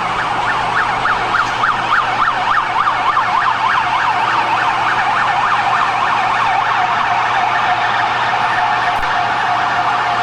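Emergency vehicle sirens in fast yelp mode, their pitch sweeping rapidly up and down several times a second, with more than one siren overlapping.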